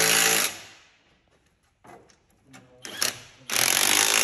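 Power tool, most likely an impact wrench, run in two short bursts of about a second each: one stops about half a second in, the other starts near the end.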